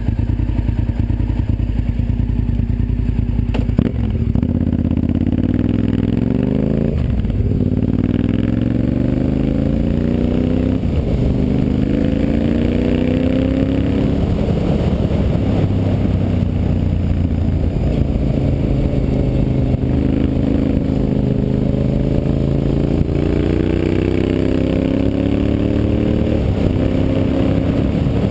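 Honda Varadero 1000's carburetted V-twin engine pulling the motorcycle along a winding road, its pitch climbing under throttle and dropping back again and again as the rider accelerates out of bends and eases off.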